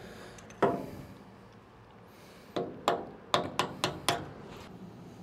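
Hammer striking a steel chisel set against a broken bolt stub in an excavator's handrail mounting plate, tapping the bolt round to spin it out of its threaded hole. One blow about half a second in, then a quick run of about six blows.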